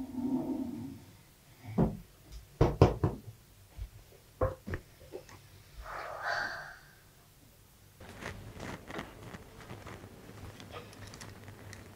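Wooden chair knocking on a hard floor as it is handled and put down: several sharp knocks over the first five seconds, then a short scuff about six seconds in as someone sits down on it.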